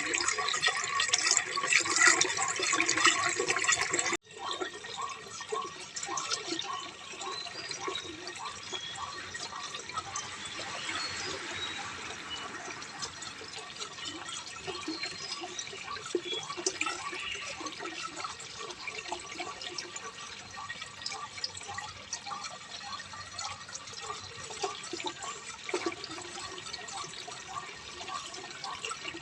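Running water with many small drips and splashes. About four seconds in it cuts out for an instant, then carries on softer.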